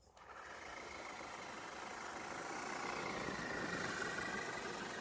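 FTX Kanyon RC crawler's electric motor and geartrain, fitted with a bigger pinion gear, whining steadily as the truck drives, growing louder after about two seconds.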